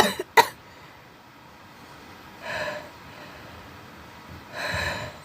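A woman's breathy gasps as a sneeze builds: two 'ah'-like intakes of breath, about 2.5 s and 4.7 s in, the second longer and louder. Two short, sharp voice sounds come right at the start.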